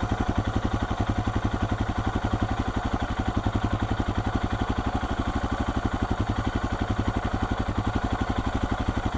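Royal Enfield Himalayan's single-cylinder engine idling through a Devil Evo slip-on exhaust, a steady, even train of rapid exhaust pulses.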